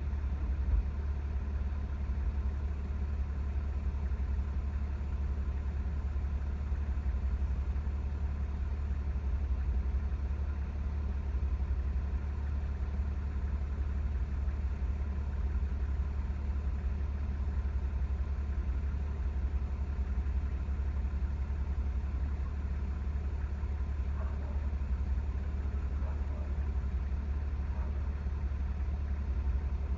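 A vehicle engine idling steadily, with a low, even drone and no siren sounding.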